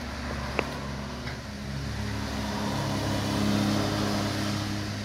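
A vehicle's low motor hum with a few steady pitched tones swells to its loudest about three and a half seconds in, then eases off. A single sharp click comes just over half a second in.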